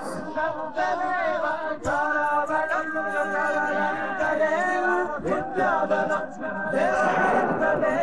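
Background music of several voices singing together, choir-like and with little or no instrumental accompaniment.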